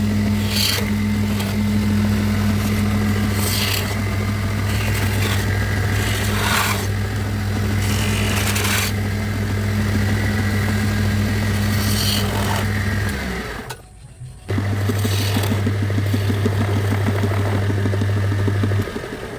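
Electric motor of a woodworking machine running with a steady hum, with repeated scraping strokes of a tool on wood over it. The motor stops about two-thirds of the way through, starts again after a second, and stops again near the end.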